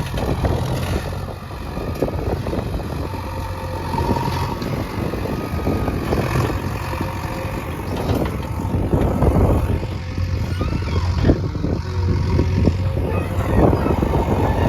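JCB 3DX backhoe loader's diesel engine running steadily under load while digging, with repeated clanks and knocks from the digging work.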